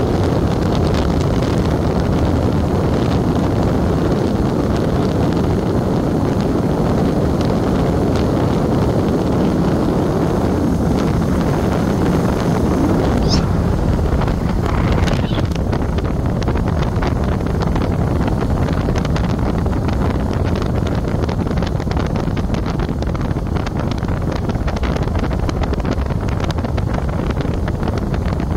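Wind buffeting the microphone of a moving vehicle, with road and vehicle noise in a steady low rush. A brief high chirp sounds just before the middle.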